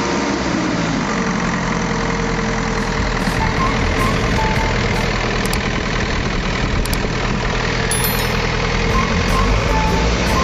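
Freshly overhauled Kirloskar 4R1040 four-cylinder turbocharged diesel engine in a JCB machine, running steadily at idle with its tappets just set.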